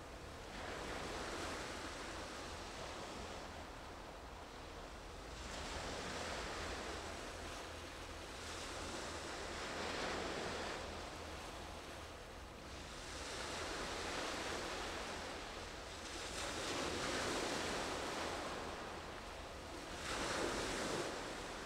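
Waves washing in on a shore, swelling and falling in repeated surges about every three to four seconds.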